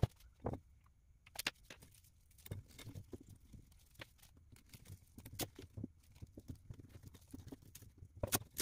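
Hands handling an FPV drone and its parts on a wooden table: many quick, irregular taps, clicks and rustles, with a sharper double click near the end.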